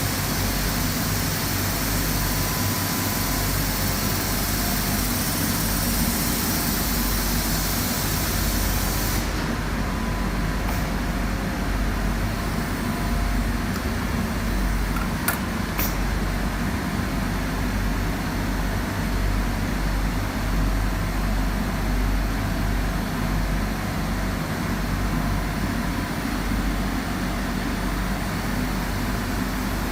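Quilt edge trimming and taping machine running with a steady low hum. A high hiss on top stops about nine seconds in, and two sharp clicks come near the middle.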